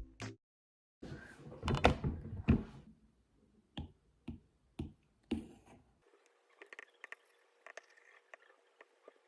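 A series of light knocks and clicks, about ten in the first six seconds, then only faint scattered ticks.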